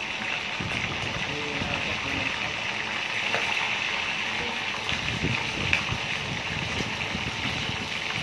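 Food frying in hot oil in a frying pan: a steady sizzle with scattered crackles, and occasional clicks of metal tongs against the pan as the pieces are turned.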